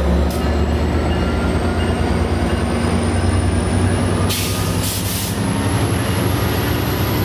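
Amtrak Pacific Surfliner diesel locomotive and its passenger cars rolling along the platform, the engine giving a steady low rumble under a thin high whine that slowly rises in pitch. A short burst of hiss comes about four seconds in.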